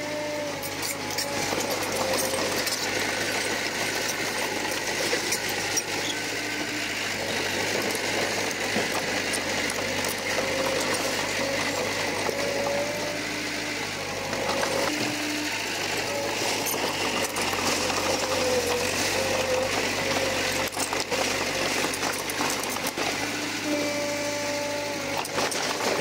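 Komatsu crawler bulldozer working: the diesel engine runs steadily under load, with rattling and intermittent pitched squeals from the machine.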